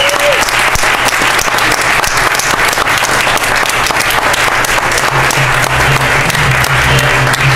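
Wedding guests applauding, a dense, steady clapping from a room full of people.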